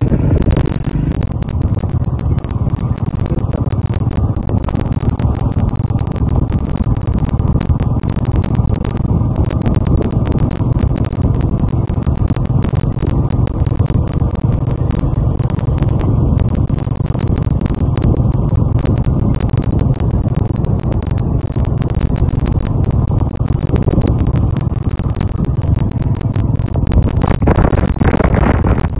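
Motorcycle engine running steadily at road speed, with wind buffeting the microphone; the noise gets a little louder and brighter near the end.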